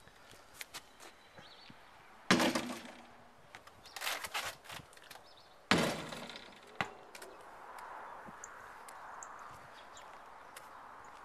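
A series of loud knocks from a basketball striking a hoop and bouncing. The biggest comes about two seconds in with a short ringing tail, a quicker cluster follows, and another sharp hit comes near the middle.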